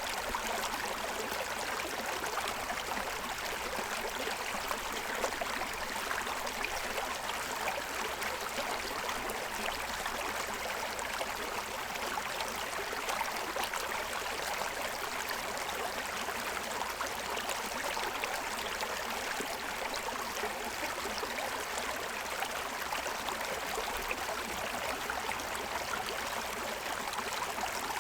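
Shallow stream running over the stones of its bed: a steady rush of water with fine splashing and gurgling.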